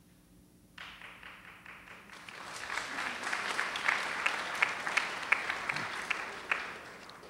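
Audience applauding: it starts suddenly about a second in, swells to a dense peak with a few sharp individual claps standing out, and dies away near the end.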